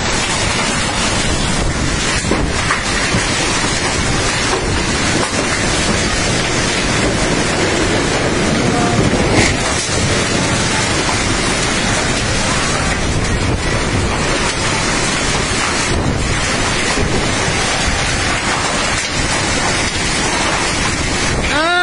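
Storm wind and heavy rain: a loud, steady rush of noise with gusts buffeting the microphone.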